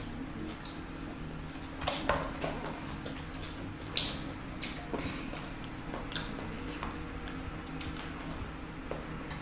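Close-up eating of crispy fried chicken: scattered sharp crunches and clicks of biting and chewing, about one every second or two, with soft wet mouth sounds between.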